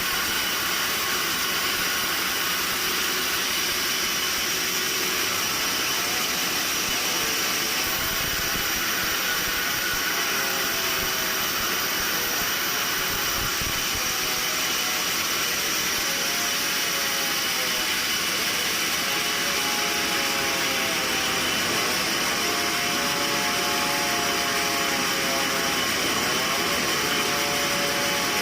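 Sawmill machinery running, a loud steady mechanical noise with a constant high whine that does not change in level. From about a third of the way in, faint wavering tones come and go beneath it.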